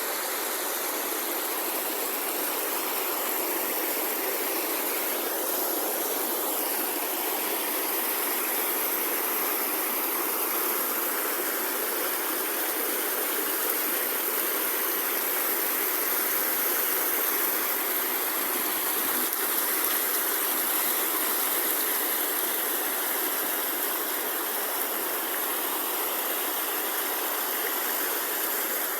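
Steady rush of water from a creek running over rocks at the top of a waterfall.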